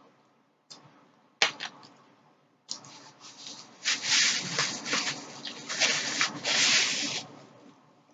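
Close-miked rustling and scraping of food or its packaging being handled during a meal. Two sharp clicks come first, then a longer, louder stretch of irregular scratchy rustling that stops near the end.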